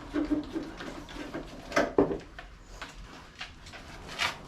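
Workshop clatter of hands and tools on the van's bodywork: scattered clicks and knocks, the loudest about two seconds in and another shortly before the end.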